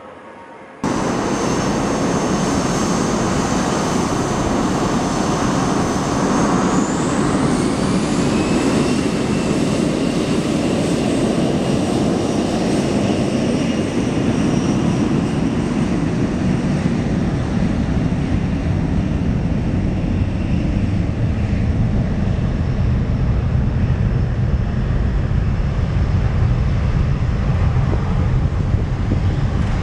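Boeing 737 jet engines spooling up to takeoff power, starting abruptly about a second in: a loud steady roar with a whine that rises about six to eight seconds in, and a deeper rumble building in the later part.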